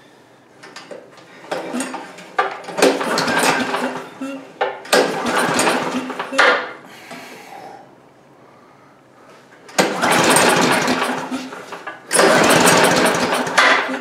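Chinese Honda-clone single-cylinder engine cranked over by its pull starter, in four bursts of about two seconds, each a fast chuffing, without firing. A compression gauge is in the spark plug hole, and compression is low at about 70 psi.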